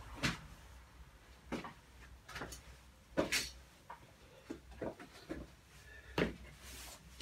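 Half a dozen scattered light knocks and clunks of car parts being handled, the loudest a little after three seconds in.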